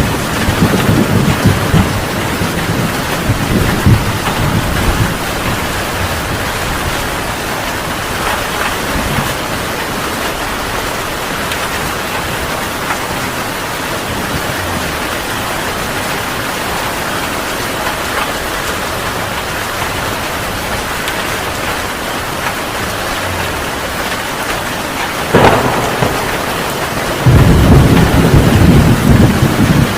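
Heavy rain falling steadily in a thunderstorm. Thunder rumbles low over the first few seconds and fades; a sharp thunderclap cracks about 25 seconds in, and loud rolling thunder follows near the end.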